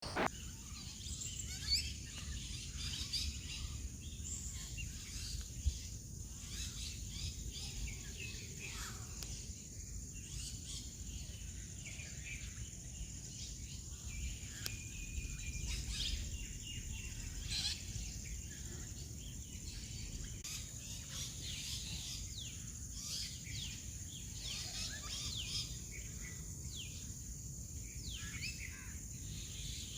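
Birds chirping and calling in short, quick notes over a steady high insect drone, with a low rumbling background noise.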